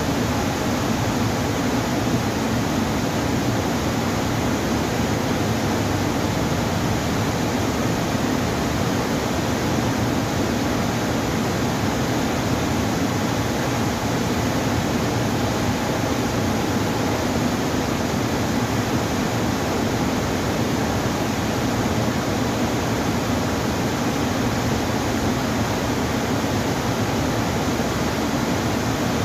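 Water rushing over a river dam's open spillway gates and weir: a steady, even noise that does not change.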